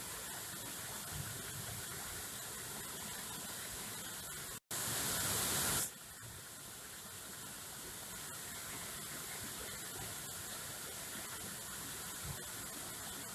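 Steady rushing of a waterfall. Just under five seconds in, the sound cuts out for an instant and gives way to a louder, brighter rush lasting about a second, before the steadier rush returns.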